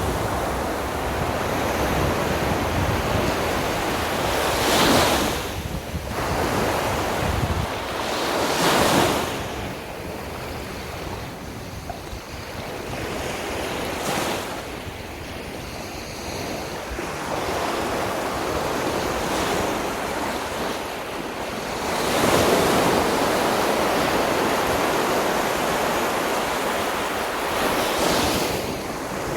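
Sea waves breaking and washing up a beach, a fresh surge every few seconds over a steady hiss of surf.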